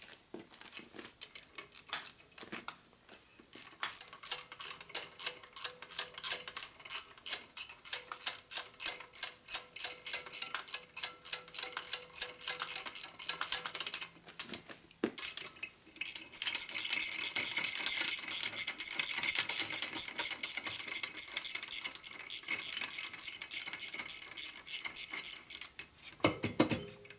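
Quarter-inch drive ratchet clicking rapidly as head bolts are run down into a Harley shovelhead's cylinder head. It comes in two long spells with a short pause between them.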